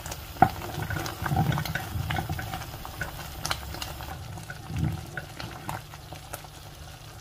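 A pan of sago pearls and vermicelli bubbling at the boil, stirred now and then with a wooden spoon, with a sharp knock of the spoon on the pan about half a second in.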